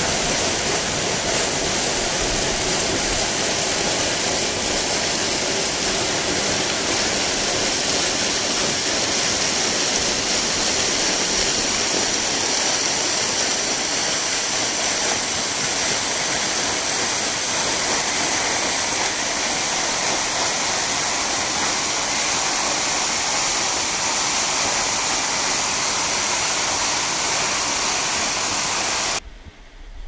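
Waterfall: a loud, steady, even rush of falling water, which cuts off abruptly about a second before the end.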